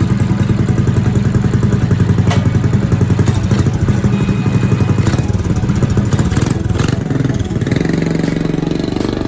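Small gas engine of a restored Morgan mini bike running loudly, with a rapid even firing pulse. Its note changes near the end.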